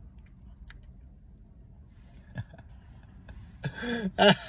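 Quiet background hum with a couple of faint clicks, then a man's voice briefly near the end.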